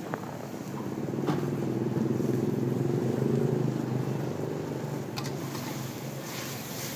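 A motor vehicle's engine passing close by, its hum growing louder over the first few seconds and then fading.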